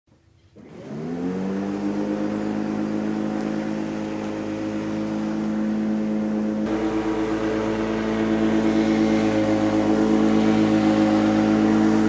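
Electric lawn mower's motor spinning up with a rising whine just under a second in, then running steadily at a constant pitch, a little louder in the second half.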